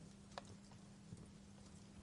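Wood fire crackling faintly in a fireplace: a few sparse sharp pops, the clearest about half a second in, over a low steady hum.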